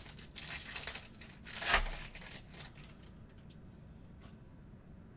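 Crinkling and rustling of a trading-card pack's foil wrapper being handled, with the loudest crinkle a little under two seconds in, then only faint handling sounds.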